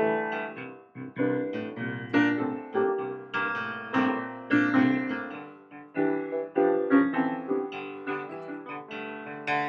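Background piano music: single notes and chords struck one after another, each ringing and fading.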